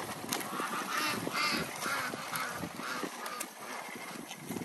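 A dead tree branch being dragged over wet, muddy ground: bark and twigs scraping and crackling, with a few short squeaks between about one and three seconds in.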